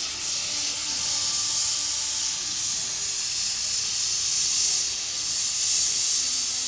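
Steam locomotive hissing steam in a strong, steady high-pitched rush that swells and eases slightly.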